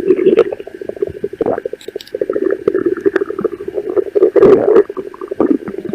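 Hungry stomach growling: a long, continuous rumbling gurgle with a steady low pitch and a fast rattling texture, swelling louder about four and a half seconds in.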